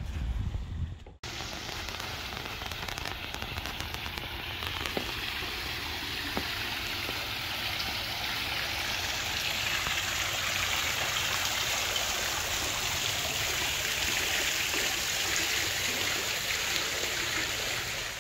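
Steady hiss of splashing, falling water, growing louder about halfway through.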